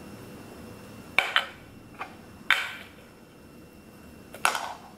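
Cooked sushi rice being scooped by hand out of a metal rice-cooker pot: about five short scrapes and knocks against the pot, each fading quickly.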